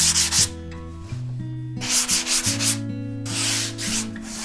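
Hand sanding of a polyurethane foam surfboard blank: rough rubbing strokes that stop briefly about half a second in and again about three seconds in, over sustained low background tones.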